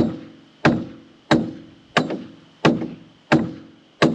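Repeated blows driving a PVC conduit into its glued fitting: about seven evenly spaced strikes, roughly one every two-thirds of a second, the pipe ringing briefly after each.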